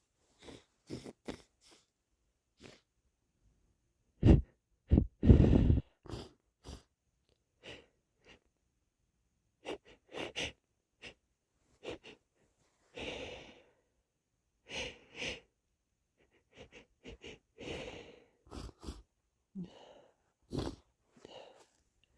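A person's held-back, muffled sneezes among many short, wet sniffs and catching breaths. The loudest come as a quick run of two or three about four to six seconds in.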